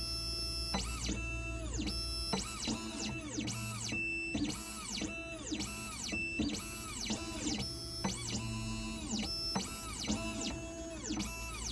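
Xhorse Dolphin XP005 key-cutting machine's stepper motors whining in quick rising-and-falling sweeps, about two moves a second, as the machine runs its positioning moves.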